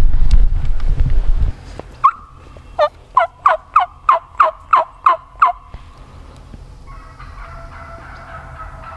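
A run of turkey yelps, about nine notes at roughly three a second, each dropping in pitch, starting about two seconds in and stopping after about three seconds. Before them, wind rumbles on the microphone for the first second and a half.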